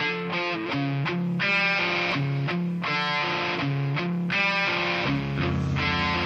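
Intro music: electric guitar picking and strumming chords in a steady rhythm, with a bass line coming in about five seconds in.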